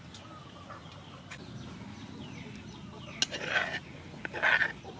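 A metal spoon clinking a few times against a small ceramic bowl as a pounded dip is scooped in, with two short scraping sounds near the end.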